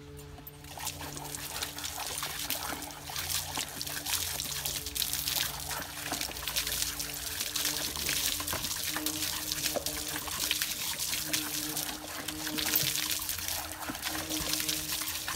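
Water running from an outdoor garden tap and splashing irregularly onto paving as a dog bites and laps at the stream.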